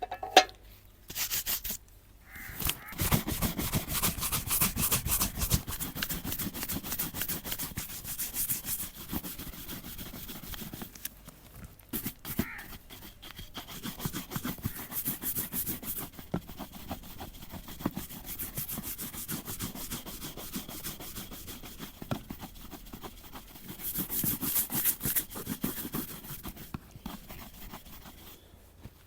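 Brush scrubbing back and forth over a boot in long stretches of rapid strokes, with short pauses between stretches.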